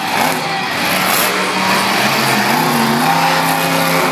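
Monster truck engine revving hard as the truck drives across a dirt arena, its pitch rising and falling.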